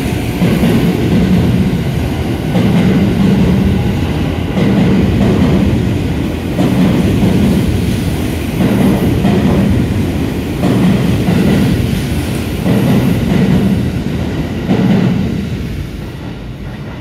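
683/681 series electric limited express train departing and rolling past at close range, its wheels clattering in a rhythm that repeats about every two seconds. The sound fades away about sixteen seconds in as the last car clears the platform.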